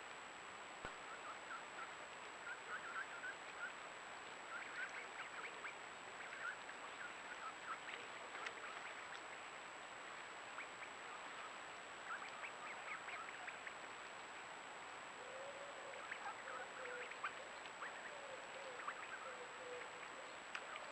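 Faint riverside wildlife calls over a steady hiss: many short chirps and clicks come and go throughout, and a lower wavering call runs from about three-quarters of the way through to near the end.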